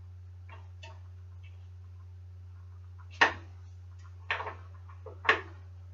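Spline wrench and bottom bracket tool clicking and knocking as a bicycle bottom bracket is tightened: a couple of faint clicks near the start, then three sharp clicks about a second apart in the second half, over a steady low hum.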